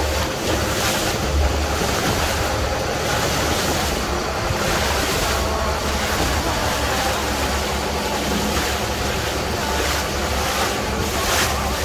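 Motorboat under way: a steady low engine rumble under rushing water, with wind buffeting the microphone.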